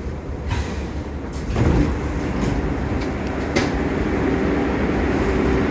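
New York City subway shuttle car's doors sliding open with a short hiss, then the steady low rumble and hum of the underground station platform.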